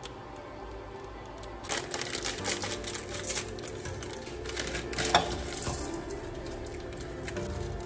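Crinkling and tearing of plastic instant-noodle packaging and its seasoning sachets, a dense crackle with a sharp tear about five seconds in, over soft background music.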